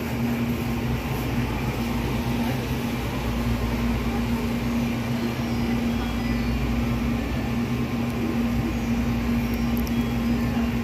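Steady hum of cooling machinery, with one constant low drone that does not change.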